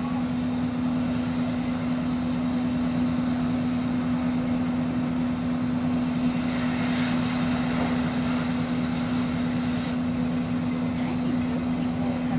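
Fire engine running at a steady high idle to drive its water pump while a hose line is in use, a loud unbroken engine drone with a constant hum.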